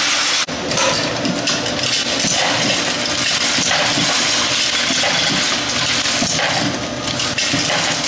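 Camdex computerized ammunition loading machine running: a steady mechanical clatter with rapid metallic clinking as metal cartridge cases feed through its stations. The sound cuts out briefly about half a second in.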